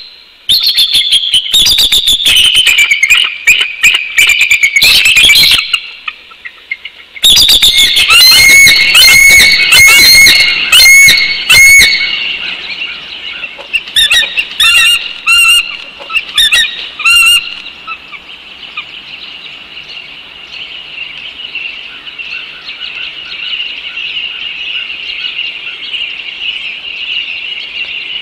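Bald eagles calling: loud bouts of rapid, high-pitched chattering calls that fall in pitch, broken by a short silence about six seconds in, then a few shorter spaced calls. From a little past halfway only a softer, steady high chorus of background birds remains.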